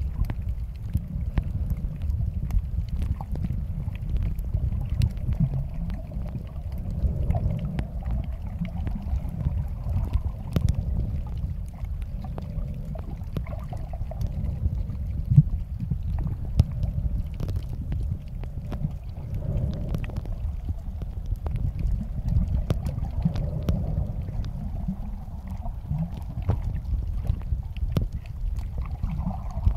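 Underwater sound picked up by a camera submerged over a coral reef: a steady low rumble of water movement, with scattered sharp clicks and crackles.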